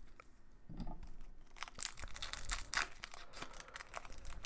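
Foil trading-card pack wrapper being torn open and crinkled by hand: a dense run of crackling that starts about a second and a half in, after a soft handling thump.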